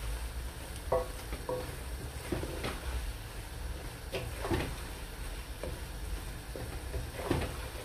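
Wooden spatula scraping and knocking against the sides of an aluminium pot as minced mutton and tomatoes are stirred and fried, over a low sizzle. The knocks come irregularly, a handful of times.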